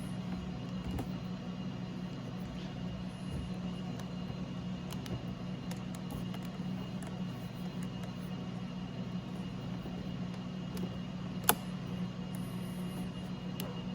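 Steady low hum with a faint high tone underneath, and faint small clicks of a pry tool working at the plastic window switch of a car door panel; one sharp click stands out about eleven and a half seconds in.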